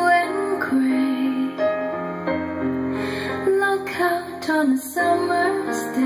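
A song with a female voice and keyboard played back through an AudioBox Thor 7000 5.1 computer speaker system and picked up in the room.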